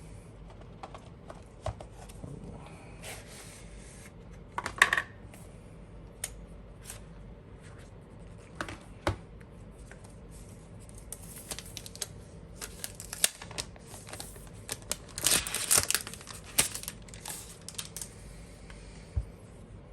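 Unboxing an Apple Magic Trackpad 2: packaging tearing and rustling in short bursts, mixed with scattered light clicks and knocks of cardboard and the device being handled.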